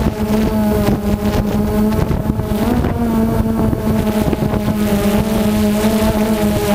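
DJI Phantom 2 quadcopter's electric motors and propellers whining steadily in flight, heard through the GoPro mounted on it, over a low rumble of wind buffeting the microphone. The pitch wavers briefly about two and a half seconds in.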